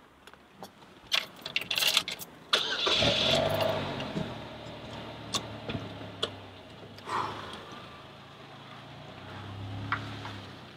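Car engine started: a few sharp clicks, then the engine catches about two and a half seconds in and settles into a steady low idle, with a few more clicks over it.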